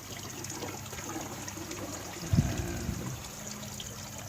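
Water trickling steadily into the aquaponics pond, over a faint steady low hum, with one brief low thump about two and a half seconds in.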